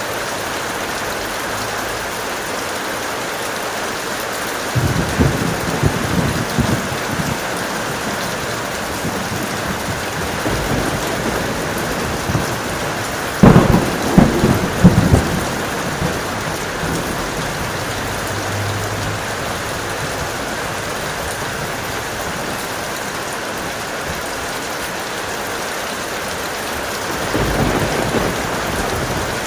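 Heavy, steady rain with rolling thunder. There is a rumble about five seconds in, the loudest and sharpest clap about halfway through, and another rumble near the end.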